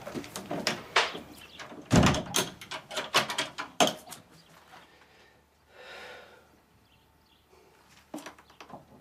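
A series of sharp knocks and clicks with one heavy thud about two seconds in, then a soft rushing swell around six seconds and a few more clicks near the end.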